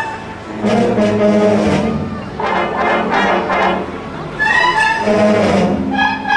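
Concert band playing, with the brass to the fore: held notes and chords in short phrases with brief breaks between them.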